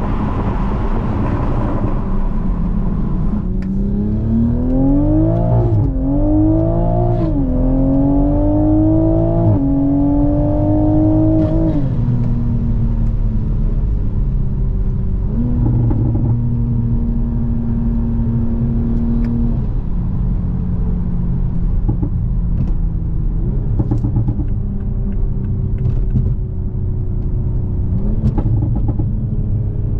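Toyota GR Supra 3.0's turbocharged inline-six through an HKS Hi-Power exhaust, accelerating up through the gears: the engine note climbs and drops at each of about three upshifts in the first half. It then settles into steady cruising, its pitch slowly easing down near the end.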